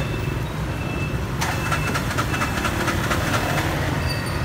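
Motor scooter traffic passing close by, small engines running with a steady low rumble. About a second and a half in there is a rapid clatter lasting about a second.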